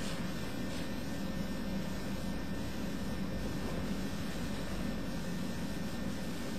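Steady low hum and hiss of the room and recording, even and unchanging, with a faint rustle near the start.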